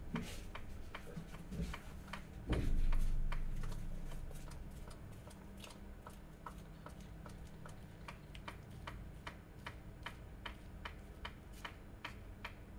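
Steady, regular ticking at about three ticks a second, of a noise the presenter could not place. A low rumble starts suddenly about two and a half seconds in, is the loudest sound, and fades away over the next couple of seconds.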